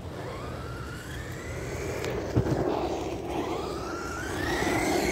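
Electric RC car's motor whining up in pitch as it accelerates, twice in succession, with a sharp knock between the two runs.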